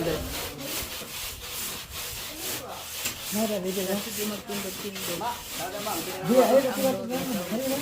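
Hand saw cutting through a wall panel with steady, repeated back-and-forth strokes. Workers' voices are heard in the background from a few seconds in.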